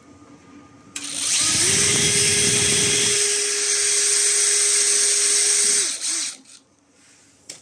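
Cordless drill spinning up and drilling a pilot hole into plywood for about five seconds. Its motor whine rises quickly and then holds steady, with a coarser grinding under it for the first couple of seconds, before it winds down.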